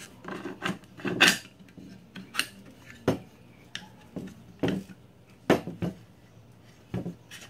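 Mossberg 500 shotgun's bolt assembly being worked into the receiver by hand: irregular metal clicks and knocks of steel parts seating. A few of the knocks are louder than the rest.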